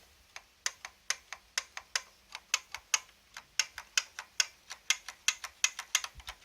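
Typing on a Codegen CG-101F keyboard with Futaba clicky switches: a quick, uneven run of sharp key clicks, about five a second.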